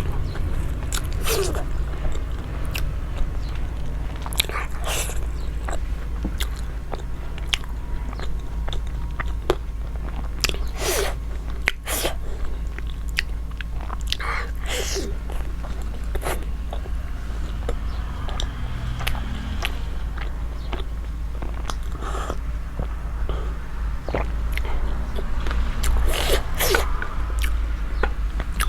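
Close-miked mukbang eating: bites and chewing with crunchy, crackly strokes at irregular moments, over a steady low hum.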